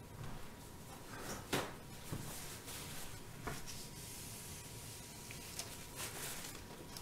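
Paper towel rustling and rubbing as a gloved hand wipes the rim of a wooden soap mold, with a few light knocks, the sharpest about a second and a half in.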